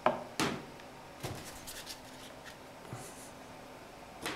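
Handling noises: a few light knocks and clicks as small test parts are set down on a plastic holder, the sharpest near the start, with fainter ticks and a brief rustle.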